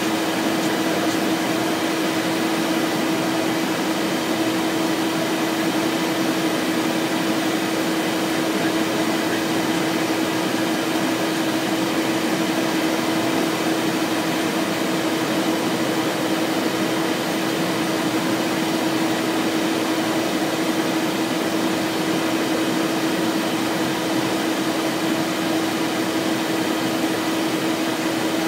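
Steady cockpit noise of a Cessna Citation Excel twin-turbofan business jet in flight on approach: an even rush of airflow and engine noise with one steady low hum beneath it.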